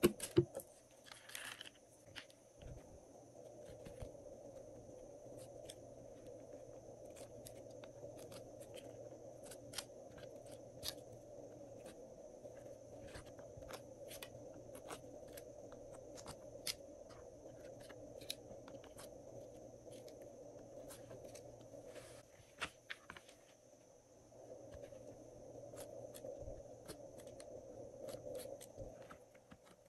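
Hands kneading and mixing glossy slime: many scattered sticky clicks and small pops over a steady background hum, with a short pause about three-quarters of the way through.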